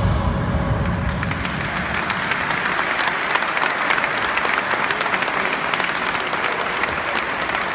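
Crowd applauding: many people clapping at once.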